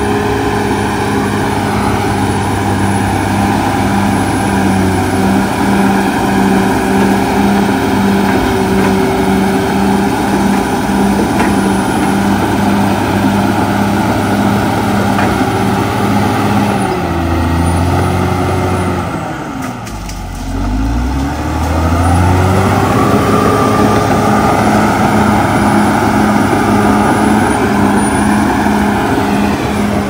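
CAT D6R XL bulldozer's diesel engine running hard as the dozer pushes dirt with its blade. A little past halfway the engine note sags and falls, dips in loudness for a moment, then climbs back up and runs steady again.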